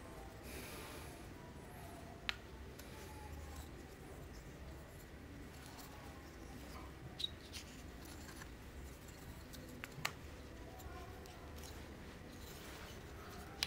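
Quiet handling noise of small objects being moved, with three sharp clicks about two, seven and ten seconds in, over a low steady hum.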